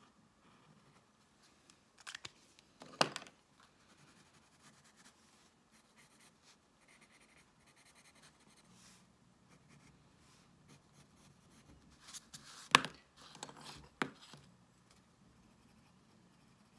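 Pencil crayons clicking and knocking as they are picked up and set down on the sketchbook: a couple of sharp knocks about two to three seconds in and another cluster around twelve to fourteen seconds. Between them, faint scratching of a drawing tip on paper.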